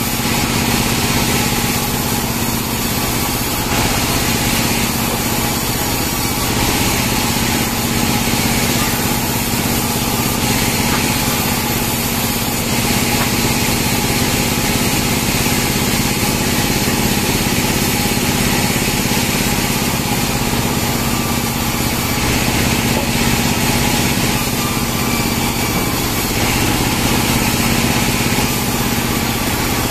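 Small bandsaw mill running steadily, its engine-driven blade sawing pine logs as they are pushed through, with a steady hum throughout.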